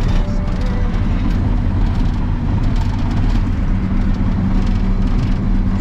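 Cat D7 Next Gen bulldozer's diesel engine running steadily under load as it pushes snow, a constant low hum heard from inside the cab.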